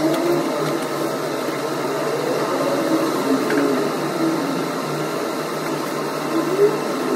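Steady hum and hiss of a running machine.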